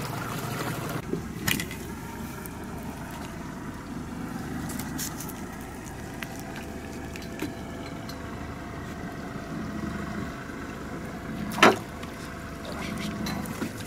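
Outboard-powered fishing boat running steadily at slow trolling speed, a low even hum. There are a few small clicks, and one sharp knock near the end.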